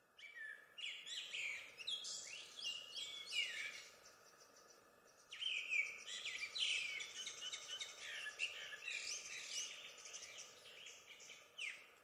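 Songbird singing, a fast jumble of high chirping notes in two long bursts with a pause of about a second near the middle, over faint steady outdoor background noise.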